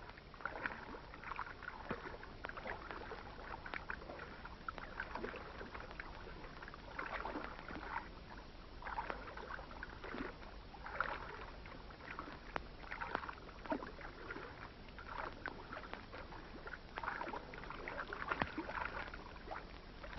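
A small boat being paddled across water: splashing paddle strokes, one every second or two, uneven in strength.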